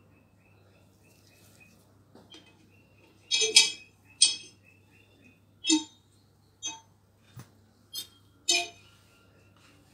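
Kitchen utensils and dishes clinking: a string of about seven short, ringing clinks spread over several seconds, the loudest about three and a half seconds in.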